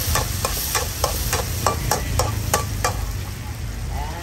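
Metal spatula scraping and knocking against a steel wok while stir-frying, about four strokes a second. The stirring stops about three seconds in, leaving a steady low rumble.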